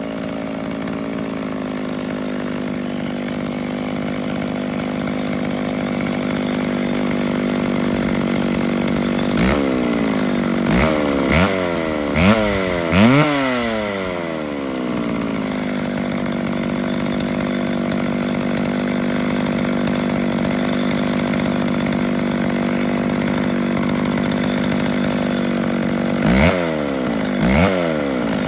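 PM650 (McCulloch Pro Mac 650) two-stroke chainsaw with an ungoverned carburettor idling steadily, its revs blipped up and back down a few times about ten seconds in and again near the end.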